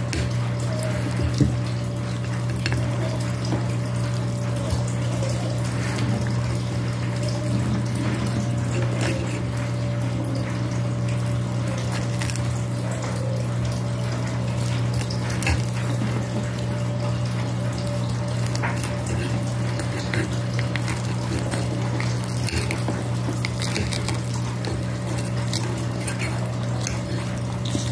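Metal fork scraping and clinking against a ceramic plate as pizza is cut into pieces, with scattered short clicks over a steady low hum.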